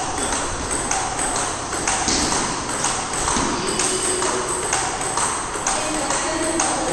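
Table tennis balls ticking sharply off bats and tables in fast rallies, about two or three hits a second in an uneven rhythm, the hits of more than one table overlapping.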